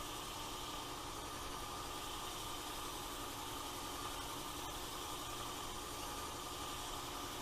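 Work Sharp Ken Onion Edition knife sharpener running steadily: its variable-speed electric motor drives the abrasive belt with a constant hum while a blade is drawn back and forth across it.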